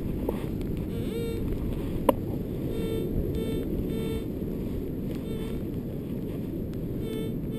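Metal detector giving short electronic beeps about twice a second while hunting a buried target, over a steady rumble of wind on the microphone.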